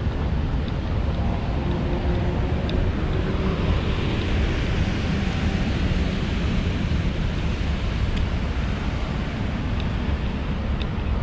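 Steady rain and wind noise on the microphone: a continuous hiss over a low buffeting rumble, with a few faint light ticks.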